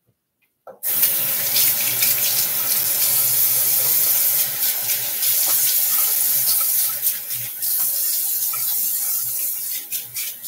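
Bathroom sink tap turned on about a second in, water running steadily into the basin with irregular splashes.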